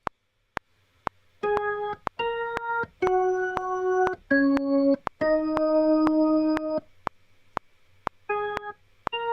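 Logic Pro's metronome clicking steadily at about two clicks a second, with a software keyboard instrument with an electric-piano sound coming in about a second and a half in, playing a series of short and held notes, with a pause of about a second and a half near the end before the notes resume.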